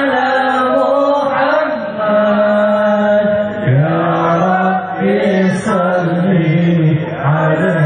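A man chanting a sholawat (Islamic devotional song in praise of the Prophet) into a microphone over a sound system, in long held notes that slide and waver in pitch.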